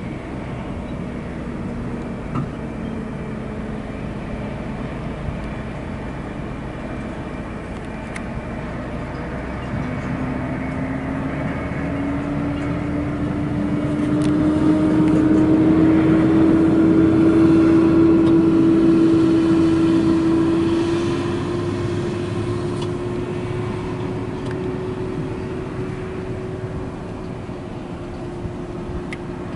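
Diesel engine of a large mining haul truck fitted as a water tanker, running as it drives by. Its engine note climbs about a third of the way in, and the sound grows loudest in the middle before fading away.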